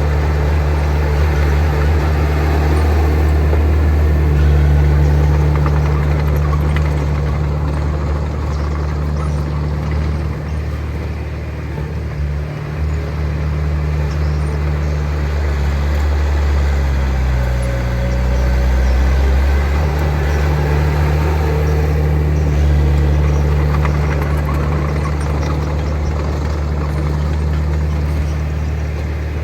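Heavy earthmoving machine's diesel engine running steadily under work. Its low note drops and shifts for a few seconds near the middle, then settles back.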